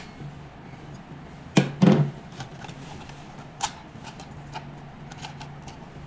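Plastic clicks and knocks as the end cap of a roller massage handle is released with its two buttons and lifted off: two loud knocks close together a little under two seconds in, then a lighter click, over a faint steady low hum.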